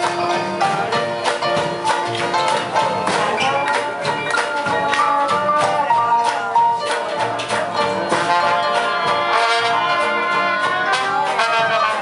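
Live traditional jazz band playing an up-tempo number: brass horns lead over banjo, string bass and drums, with a steady beat.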